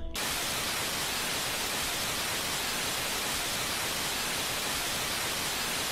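Steady hiss of static noise, even across all pitches, cutting in abruptly at the start; it stands in for the sound of a film clip that is blocked.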